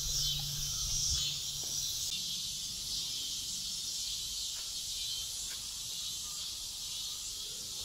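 Steady high-pitched chorus of crickets or cicadas (ঝিঝি পোকা) droning from the surrounding woods, with a low rumble in the first couple of seconds.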